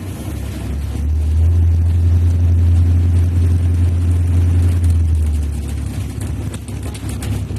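Bus engine rumbling low and steady, swelling about a second in as it pulls and easing off after about five seconds.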